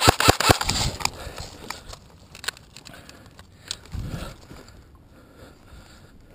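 A quick run of sharp clicks in the first half second, then scattered rustling and scraping with a dull thump about four seconds in, as a person shifts position on the ground in dry grass and scrub.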